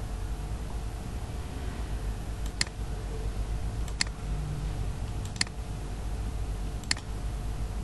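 Four sharp computer mouse clicks, about a second and a half apart, over a steady low hum.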